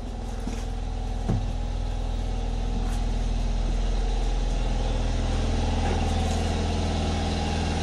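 Two gas-engine combined heat and power units running steadily: a deep, even engine hum with several steady tones, growing louder over the first four seconds and then holding.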